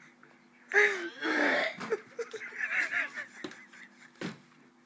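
A person wheezing and gasping in loud fits, hardest about a second in and again up to past the middle, with a few short sharp clicks in between.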